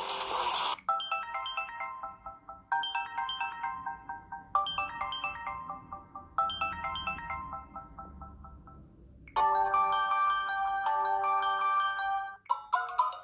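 Samsung Galaxy Gio ringtones previewed one after another. A tune cuts off within the first second. Then a short phrase of high notes repeats four times, about every two seconds, fading each time. A different tone of held notes starts about nine seconds in, and a third tone of quick notes begins near the end.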